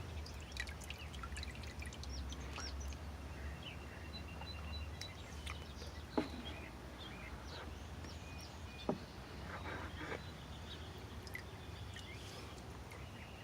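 Outdoor ambience of birds chirping intermittently over a low steady rumble, with two short sharp sounds about six and nine seconds in.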